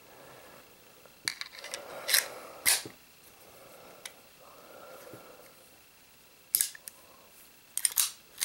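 Star Model F .22 pistol handled and its slide worked by hand: sharp metallic clicks and clacks, three in the first few seconds and a quick cluster near the end, with soft rustling of hands in between.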